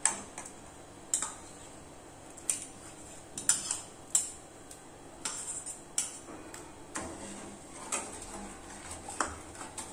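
A long metal ladle clinking against the side of an aluminium kadai as ground-rice paste is stirred into thickened milk for firni: sharp separate clinks about once a second, a few in quick pairs.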